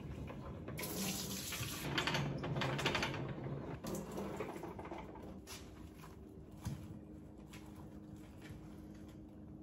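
Kitchen tap running water over strawberries in a salad spinner at the sink for about three seconds, then a few light clicks and knocks of handling.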